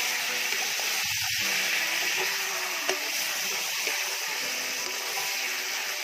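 Magur catfish curry sizzling and frying in an iron kadai over a wood fire as a spatula stirs it, a steady hiss with a single sharp click just under three seconds in.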